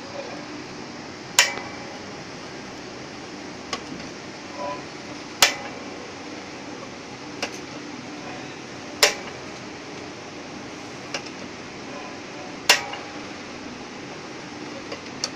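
Manual cup sealing machine being worked by hand: four sharp metallic clacks about every three and a half seconds, with a lighter tick between each, over a steady background hum.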